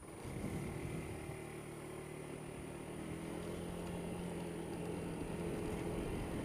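Honda Dio scooter engine revving up as the scooter pulls away from a standstill, then running at a steady pitch as it rides on.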